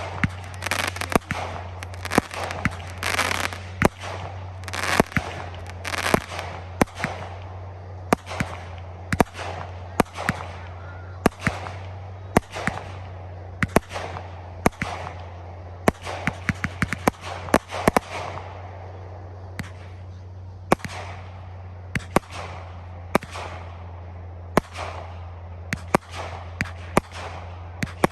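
Fireworks display shells bursting in a steady run of sharp bangs, roughly one or two a second, some with a crackling tail. A quick rapid-fire string of reports comes about two-thirds of the way in. A steady low hum runs underneath.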